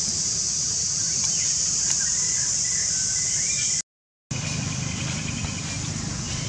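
Steady, high-pitched drone of insects, cicadas or crickets, in the forest. It cuts out completely for half a second about four seconds in, then resumes somewhat weaker.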